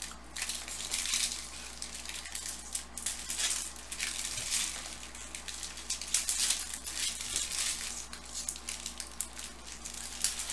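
Bowman Chrome baseball card packs being opened and the cards handled: wrappers crinkling and stiff cards rustling, sliding and clicking against each other in quick, irregular scrapes.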